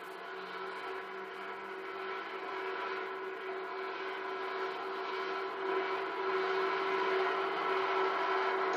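Tractor engine running steadily while towing a tanker, a constant hum that grows gradually louder as the tractor approaches. It is heard through a TV speaker.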